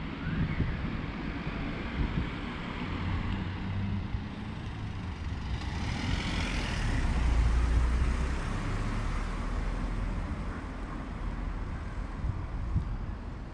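Road traffic running steadily, with one vehicle passing close by about halfway through: its rumble and tyre hiss swell up and then fade away.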